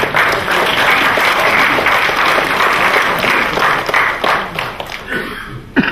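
Audience applauding after a recited ghazal, loud and sustained, then tapering off near the end. A brief loud sound comes just before it stops.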